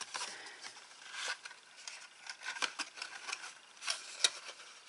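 Stiff white cardstock rustling and crinkling as it is handled and folded by hand into a box, with scattered small clicks and one sharp click a little over four seconds in.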